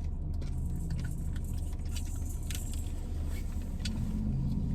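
Steady low hum of a car running, heard inside the cabin, with scattered small crackles and clicks from eating a cake pop coated in hard sprinkles.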